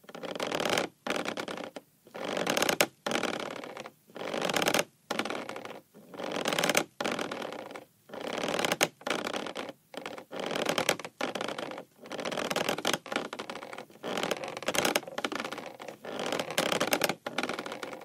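A ship creaking over and over: long grating creaks, each starting loud and tailing off, about one a second with short silent gaps between.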